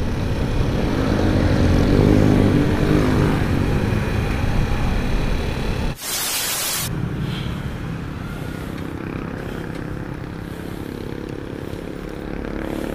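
Honda motorcycle engine running under way, with its pitch rising and falling in the first few seconds, over wind noise on the camera's microphone. About six seconds in, a burst of TV-static hiss lasts just under a second, then the engine runs more quietly at low speed.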